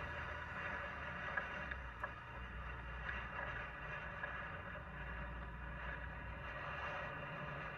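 Strong wind buffeting the microphone with a steady low rumble, a steady high whine running over it and a few faint clicks.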